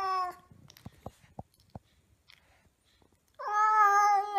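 Grey Scottish Fold cat giving long, drawn-out meows that sink slightly in pitch: one trails off just after the start, and another begins about three and a half seconds in. Between them there are a few faint taps. The owner takes the cat to be angry.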